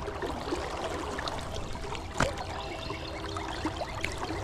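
River current flowing and trickling around a wading angler and his landing net, with one short, sharp knock about two seconds in.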